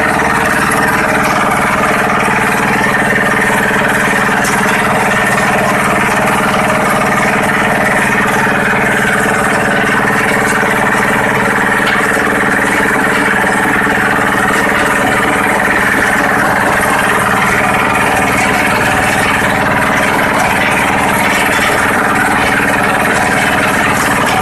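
Rock crushing and screening plant running steadily: a constant machine drone under the dense rattle of broken stone shaking across a vibrating wire-mesh screen and tumbling off the discharge chute.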